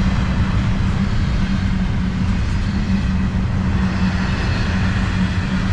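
Double-stack intermodal well cars of a freight train rolling past close by: a steady, loud rumble of steel wheels on rail.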